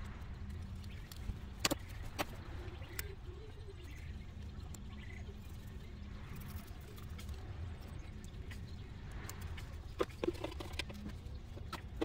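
A few sharp clicks and knocks of hand tools and metal parts on the engine as the intake plenum is unbolted, in two small clusters near the start and toward the end, over a steady low background rumble.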